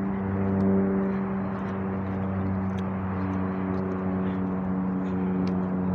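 Steady engine hum, a vehicle idling with an even low tone.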